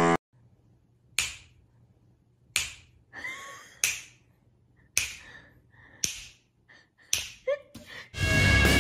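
A series of sharp slaps, about one every second, seven in all; guitar music comes in near the end.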